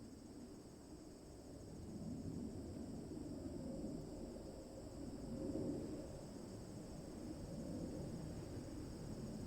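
Rural roadside ambience: a faint low rumble of distant road traffic that grows about two seconds in and swells and eases around the middle, over a steady high chirring of insects.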